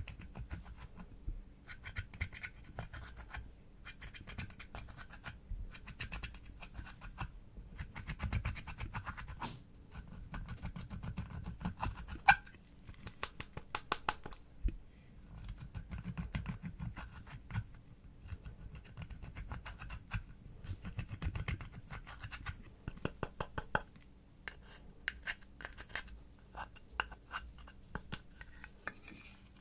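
Pressed eyeshadow being scratched and scraped out of a plastic palette with a small tool, in runs of quick strokes with light clicks and taps of plastic.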